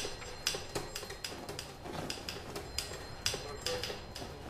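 Irregular light clicks and clinks, a few each second, over a faint hiss.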